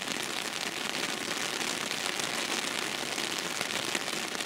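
Steady rain falling, a dense even patter of many small drops.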